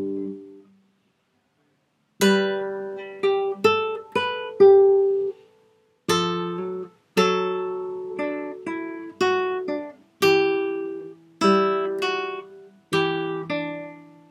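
Acoustic guitar playing a minuet at sight, note by note: plucked single notes and small chords in short, halting phrases. Pauses fall between them, the longest over a second near the start.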